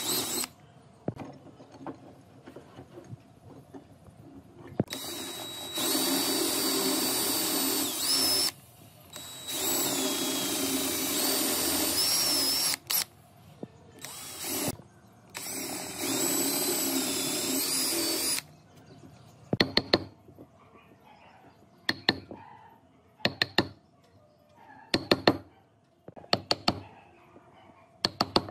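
Hand-held power drill boring holes into a wooden block, in four bursts of a few seconds each with the motor whine rising and falling. From about two-thirds of the way in, a chisel is struck in short clusters of sharp knocks, chopping out the drilled mortise.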